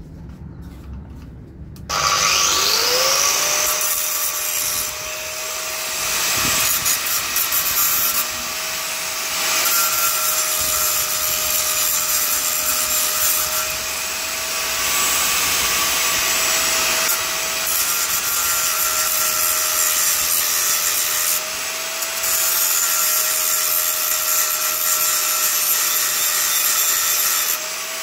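Handheld power tool spinning up about two seconds in, then running steadily with a harsh grinding hiss as it cuts into the pushchair's metal tube frame, easing off briefly a few times.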